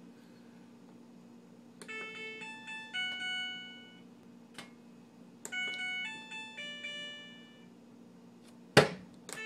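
Washing machine's electronic beeper playing a short tune of pitched beeps in two phrases, over a steady low hum. Sharp clicks fall between the phrases, and a loud knock comes near the end.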